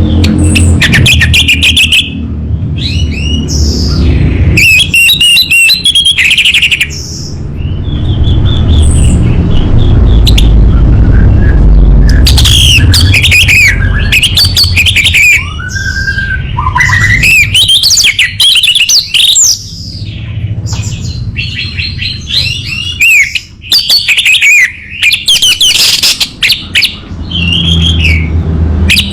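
Orange-headed thrush singing a loud, varied song of whistled phrases, rapid chattering trills and quick rising and falling notes, broken by short pauses, over a steady low rumble.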